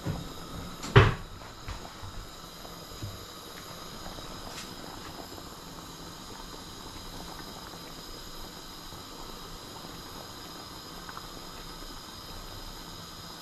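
A sharp clunk about a second in, with a few lighter clinks, then the steady hiss of a pot of glutinous rice boiling on the stove.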